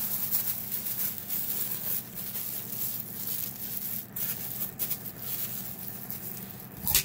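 Thin plastic freezer bag crinkling as its neck is twisted tight by hand, then a sharp snap near the end as the twisted neck is pushed through a tape bag sealer that wraps and cuts the tape.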